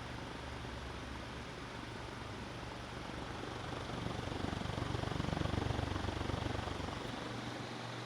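Venti-Delta New Delta Eco commercial ceiling fan running in exhaust mode, blowing air upward: a steady motor hum under the whoosh of the blades. A low rumble swells from about halfway through and fades near the end.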